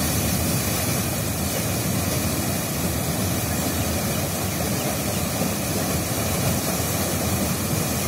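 Muddy floodwater pouring in a torrent through a gap in an eroded earth bank and crashing into churning water below: a steady, unbroken rush.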